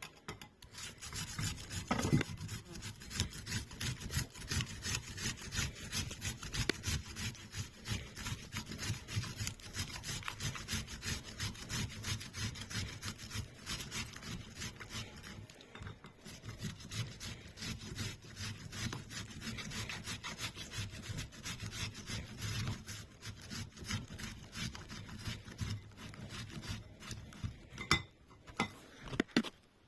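Rapid scraping strokes kept up steadily, the sound of something being rasped or grated by hand, ending with a couple of sharp knocks.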